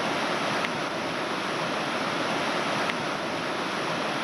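Shallow mountain river rapids rushing over and around boulders: a steady, even rush of white water.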